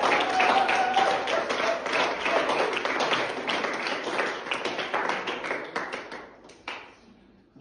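A small audience applauding as the music ends, a held note fading under the first second of clapping. The clapping thins out over several seconds and ends in a few scattered claps.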